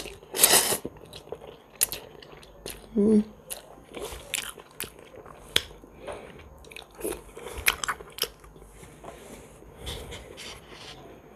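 Close-up eating sounds: a woman chewing mouthfuls of instant noodles, with a string of short wet clicks and smacks from mouth and chopsticks. A short hum comes about three seconds in.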